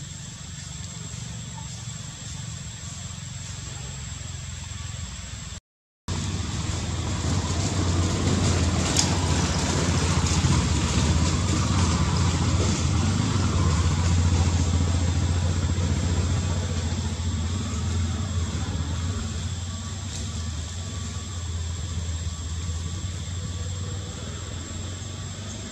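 A motor vehicle's engine running steadily as a low hum with road-like noise over it; the sound cuts out briefly about six seconds in, comes back louder, and eases off in the second half.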